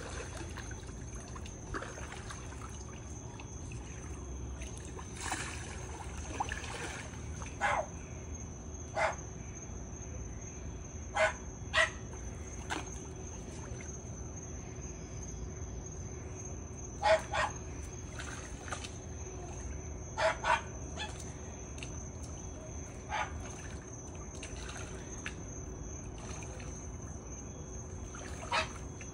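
A person wading through shallow floodwater: short sloshing splashes, singly or in pairs every few seconds, over a steady background of moving water.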